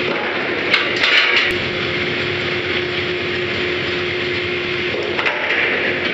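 Drilling rig machinery running with a steady drone and a constant hum, with a few sharp clanks about a second in and again near five seconds, each followed by a short hiss.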